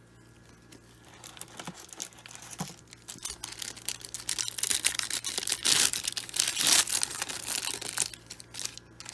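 Foil wrapper of a 1995 Upper Deck SP baseball card pack being torn open and peeled back by hand, crinkling and crackling. It starts faintly after a quiet first second, is loudest in the middle and eases off near the end.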